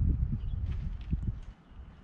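Wind buffeting the microphone: an uneven low rumble that swells and drops in gusts, easing off near the end, with a few faint clicks.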